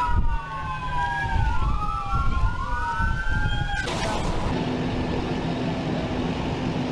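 Several emergency vehicle sirens wailing at once, their overlapping tones slowly rising and falling. About four seconds in they cut off abruptly and give way to a steady rushing rumble with a low hum.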